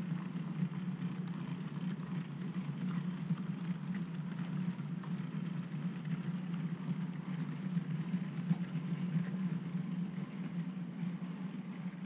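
OO gauge model train of vans running past on the layout: a steady low hum of the locomotive's motor and wheels on the track, with faint clicks from the rails.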